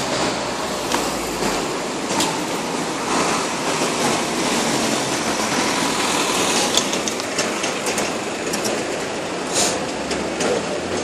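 Steady city street noise with scattered short clicks and taps.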